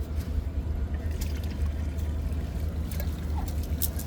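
Water trickling and dripping, with scattered small clicks, over a steady low rumble.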